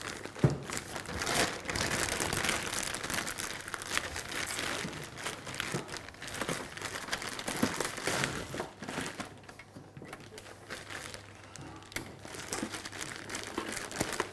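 Clear plastic packaging bag crinkling and rustling as it is pulled off a boxed electronic unit, dense at first and thinning to scattered crackles in the last few seconds. A sharp knock about half a second in.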